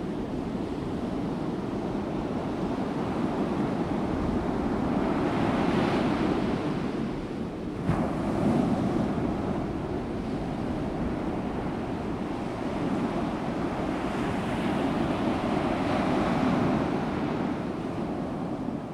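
Sea surf breaking over rocks and washing up a sandy beach, a steady rushing that swells louder about six seconds in and again near the end, with a brief click about eight seconds in.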